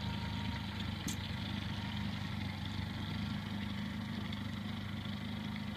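115-horsepower outboard motor idling steadily, a low even hum.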